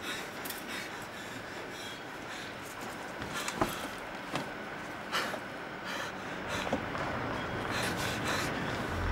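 A man panting and breathing hard, with rubbing and handling noises and a few short clicks over a steady background hiss.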